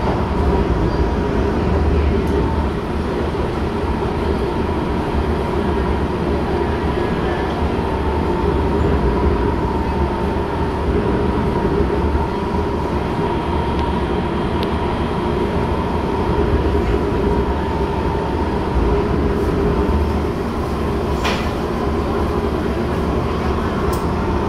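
Inside a C151 metro car running between stations: a steady deep rumble of wheels on rail with a thin steady whine held throughout. There is a short sharp click about three seconds before the end.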